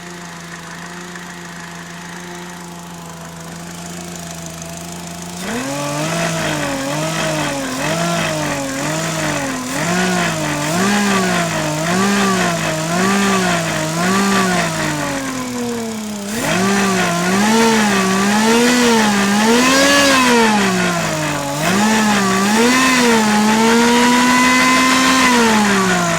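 Car engine with an Eaton M45 Roots-type supercharger idling steadily, then revved in quick repeated blips, about one a second, from about five seconds in, with a longer held rev near the end. The sound is of a supercharger making an abnormal extra noise.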